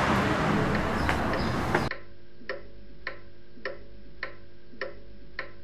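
Street traffic noise, then about two seconds in it cuts to a clock ticking steadily in a quiet room, just under two ticks a second.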